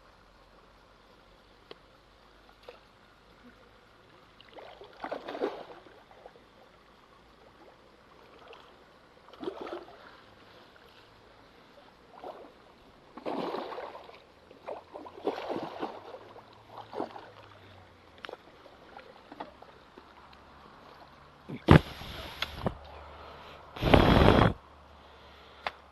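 Water splashing and sloshing in short, irregular bursts, with the two loudest splashes near the end.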